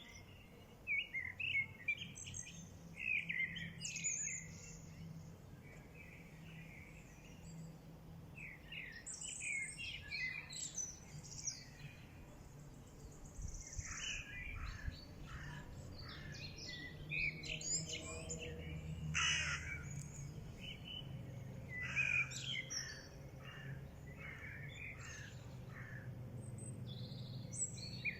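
Songbirds chirping and singing in short, scattered phrases, several calls overlapping, over a faint steady low hum.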